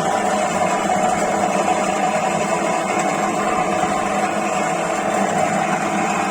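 Woodworking drilling-mortising machine running steadily with no load: an even motor hum with a whine.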